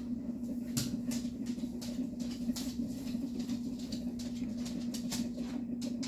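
Short, scratchy strokes of a fine paintbrush on a vinyl doll head, several a second and irregular, over a steady low hum.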